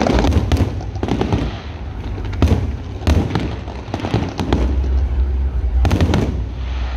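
Large aerial fireworks display: shells bursting and crackling in quick succession, with heavier booms about two and a half, three and six seconds in.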